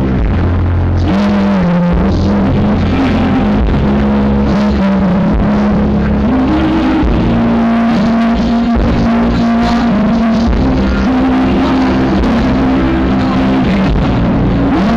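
Live rock band playing loud over a concert PA, with long held, bending electric-guitar lead notes, recorded heavily distorted through a broken camera microphone.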